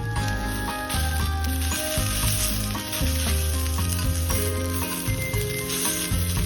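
Food sizzling steadily as it fries on a hot pan, under background music with a strong bass line.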